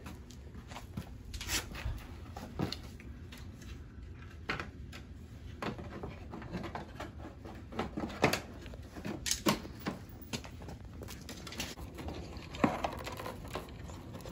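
Plastic car grille being worked into a plastic bumper cover: irregular light clicks and knocks as the parts are pressed, shifted and clipped together, with a dozen or so separate hits.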